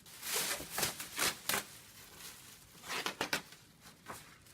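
Cardboard box and packing material being handled: rustling and scraping, in a cluster of quick noises in the first second and a half and another a few seconds in.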